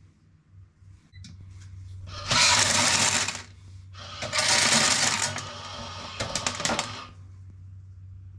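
Shelled corn kernels rattling through a grain moisture tester, in two pours of about a second each, followed by a few quick clicks, while a corn sample is checked for moisture.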